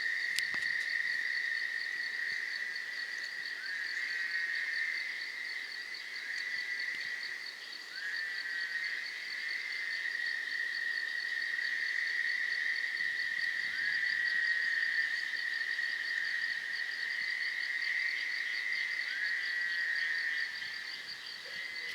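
Night chorus of frogs and insects: a steady high trilling with a short rising call repeating about every two seconds, over a faster, higher pulsing buzz.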